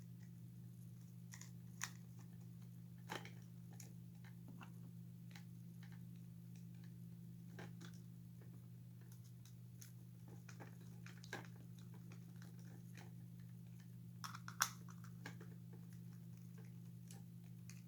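Scattered small clicks and taps of hands handling screws and small plastic toy parts, with a sharper click near the end, over a steady low hum.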